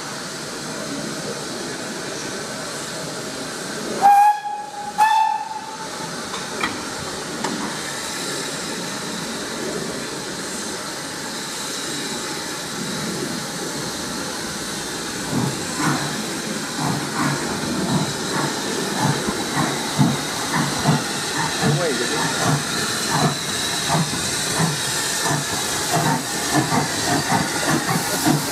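Steam locomotives SECR C class 592 and H class 263 hissing steam, with two short steam-whistle blasts about four seconds in. From about halfway, exhaust chuffs start and come faster as the train pulls away from the platform.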